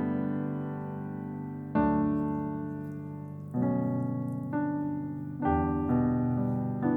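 Background piano music: slow sustained chords, a new one struck every second or two and left to ring and fade.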